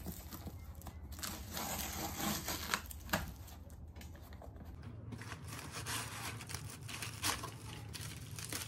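A cardboard parcel being opened by hand, the box flaps scraping and clicking, then brown honeycomb packing paper crinkling and tearing as it is pulled out.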